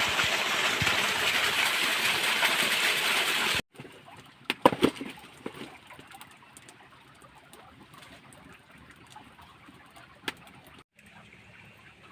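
Water rushing steadily in a stream, cutting off suddenly a few seconds in. Then a much quieter stretch with a few short sharp knocks or splashes, the loudest about a second after the cut.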